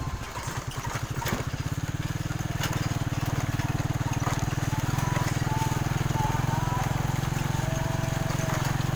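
Small motorcycle engine running steadily while riding along a rough dirt track; the engine note dips briefly about half a second in, then holds even.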